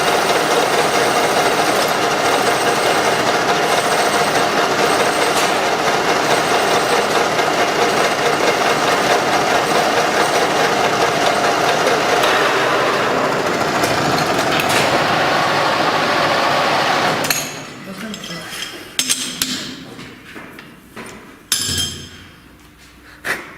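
A machine running steadily with a dense, rapid rattle, cutting off abruptly about 17 seconds in, followed by a few sharp metallic clinks.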